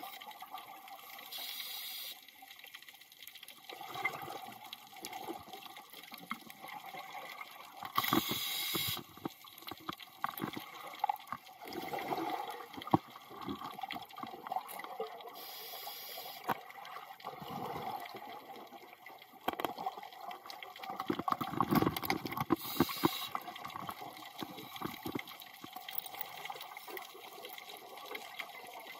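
Underwater scuba breathing: a short hiss from the regulator about every seven seconds, four in all, with gurgling bursts of exhaled bubbles between them, the loudest about three-quarters of the way in.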